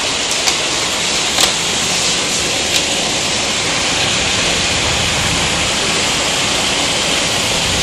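Heavy hailstorm beating down in a steady dense hiss, with a few sharp ticks of hailstones striking close by in the first three seconds.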